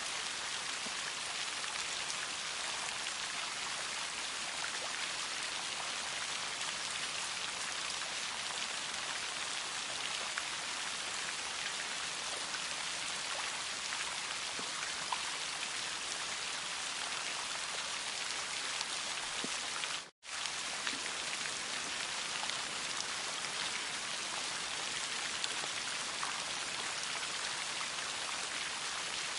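Steady rain falling, an even hiss with scattered individual drop ticks. It cuts out completely for a split second about two-thirds of the way through, then carries on unchanged.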